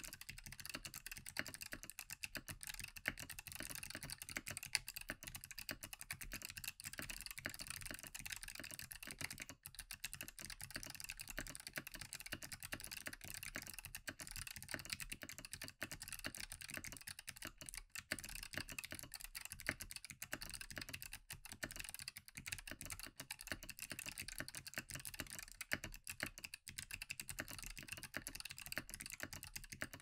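Steady, fast typing on a custom mechanical keyboard fitted with unlubed Kailh Box White clicky switches on a brass plate: a dense stream of crisp key clicks.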